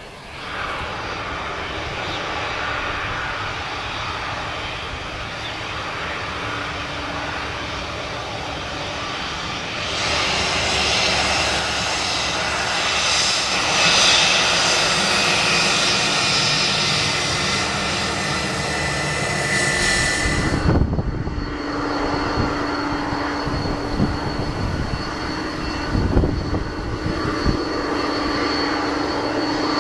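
Jet engines of an Airbus A320 airliner running at idle as it taxis and holds on the runway: a steady whine. The sound changes abruptly about ten and twenty seconds in, with a few low thuds near the end.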